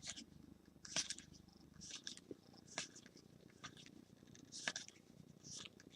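Faint, soft swishes of trading cards being slid off the stack and flipped one after another, several in a few seconds.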